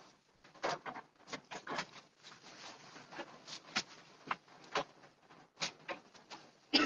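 Rustling of cloth and a plastic bag, with irregular soft clicks and taps, as a sewn garment is handled and folded; a sharper knock comes near the end.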